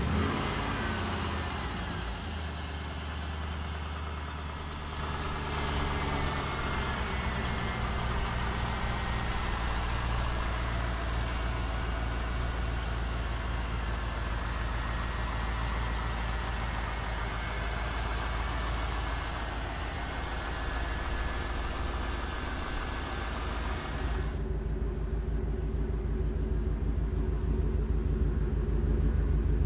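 LS1 5.7 L fuel-injected V8, freshly started, idling steadily. Near the end the sound turns deeper and louder, heard from the rear through the dual exhaust with Flowmaster mufflers.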